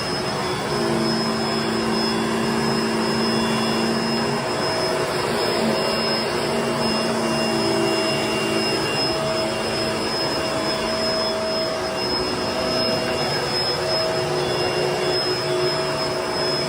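Vacuum cleaner running steadily on carpet, a constant rush of air with a high motor whine, its lower tones shifting a little as it is pushed back and forth.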